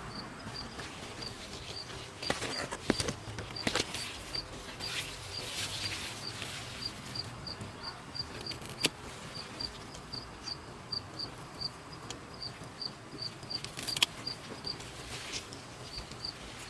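A high-pitched insect chirping steadily, about two to three chirps a second, with scattered clicks and knocks of kitchen utensils, sharpest about two to four seconds in and again near fourteen seconds.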